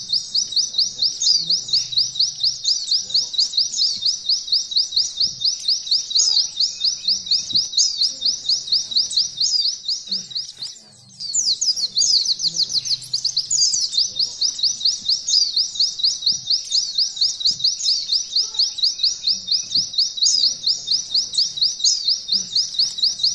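Domestic canary singing a long 'nembak' trill: a high, rapid-fire string of fast-repeated notes, broken by a brief pause about ten and a half seconds in.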